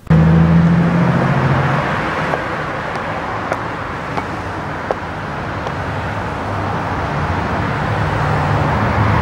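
Street traffic: steady road noise with car engines passing, one near the start and another building near the end, with a few faint clicks in between.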